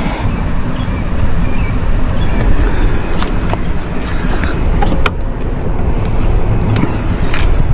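Loud, uneven low rumble, with a few light clicks and taps scattered through it as parts of the truck are handled.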